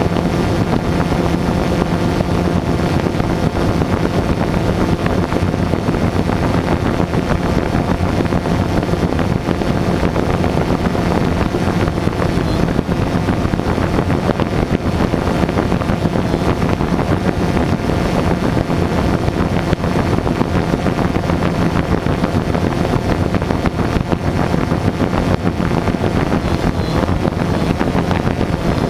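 FPV quadcopter's motors and propellers whirring steadily, with a faint low hum, picked up by the camera on board the drone.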